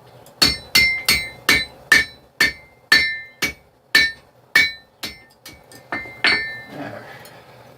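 Hand hammer striking hot steel on an anvil, about fourteen blows at roughly two a second, each with a bright metallic ring, drawing the knife blank out flat. The blows stop about six and a half seconds in.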